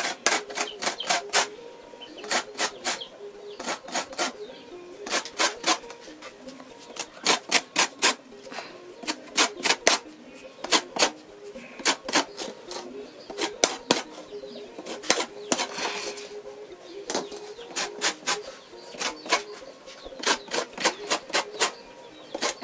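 Lemon rind scraped on a flat stainless-steel grater, zesting: quick rasping strokes in short irregular runs, roughly two or three a second.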